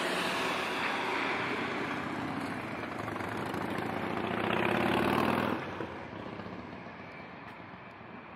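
A bus engine running close by, over a rush of traffic noise. It swells to its loudest about five seconds in, then drops away suddenly.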